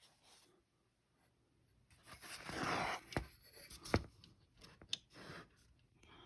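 Faint rustling and scraping handling noise with two sharp knocks a little after the middle, after about two seconds of near silence.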